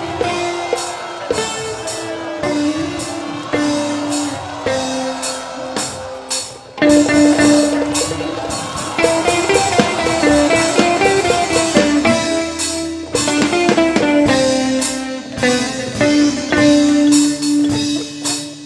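Music with drums and guitar. It dips briefly about six seconds in, then comes back louder.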